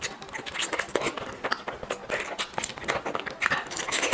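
Close-miked eating: a person biting and chewing food with many quick, irregular crunches and crackles.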